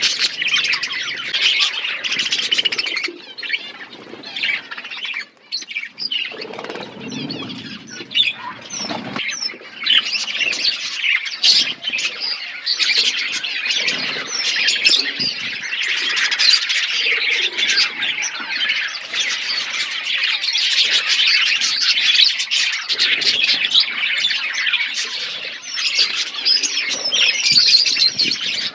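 A flock of budgerigars chattering continuously, a dense overlapping mix of warbling and sharp chirps. The chatter thins briefly about five seconds in, then builds again.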